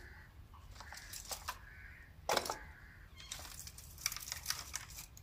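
Dry firewood sticks clattering and clicking as they are picked out of a plastic crate for a clay stove fire. There is one sharp crack about two seconds in and a quick run of clicks near the end, with birds calling faintly in the background.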